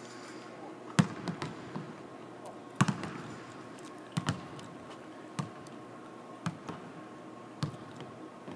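Basketball bouncing on a hardwood court: about a dozen irregular thuds, some in quick pairs, echoing in a large empty arena over a steady background hum.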